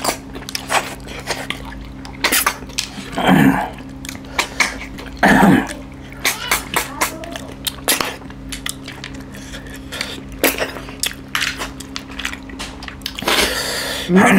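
Close-up eating sounds: fingers and snail shells clicking on plates, with lip-sucking noises as snails are sucked out of their shells. There are two short throaty sounds, about three and five seconds in, and a longer sucking stretch near the end, over a faint steady low hum.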